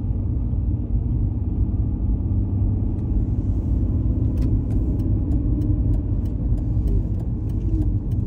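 Car engine and road rumble heard from inside the cabin while driving: a steady low rumble. From about halfway through, a run of light ticks comes roughly twice a second.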